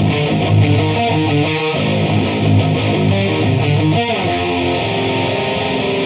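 Electric guitars with extended range, played through Mesa/Boogie amplifier heads and cabinets, playing a distorted metal riff: short changing notes, then longer held notes from about four seconds in.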